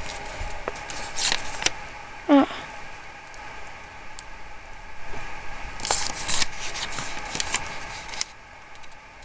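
Thin black plastic bag crinkling and rustling as a package is handled, loudest about a second in and again around six seconds in. A short squeak that slides in pitch comes about two and a half seconds in.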